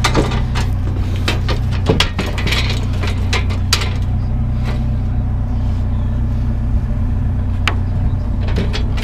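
A vehicle engine idling steadily, with a few scattered knocks and clicks over it.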